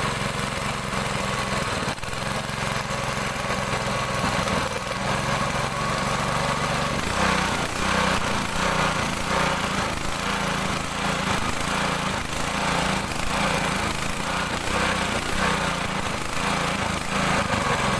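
Honda GX200 single-cylinder four-stroke engine running; about seven seconds in it starts running unevenly, surging in a regular beat, as it sputters after the fuel contaminated with diesel-like fuel was drained.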